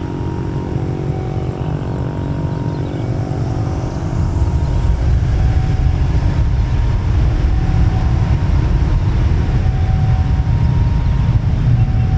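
Jet engines of a Lion Air Airbus A330-900neo (Rolls-Royce Trent 7000 turbofans) running, a steady low rumble with a faint whine that grows louder about four seconds in.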